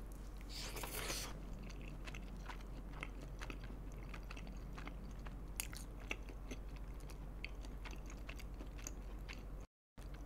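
Close-miked bite into a piece of sauced chicken, then chewing with many small wet mouth clicks. The sound cuts out for a moment near the end.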